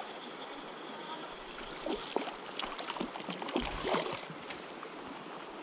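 Creek water running steadily, with a cluster of short, sharp splashy sounds from about two to four and a half seconds in.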